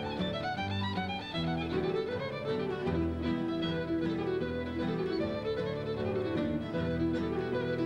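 Background music: a fiddle playing a tune over a lower accompaniment.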